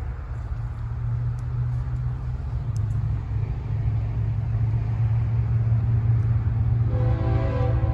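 Two BNSF GE diesel locomotives of an empty sand train approaching, their low engine rumble growing steadily louder. Near the end the locomotive horn begins to sound, a chord of several steady tones.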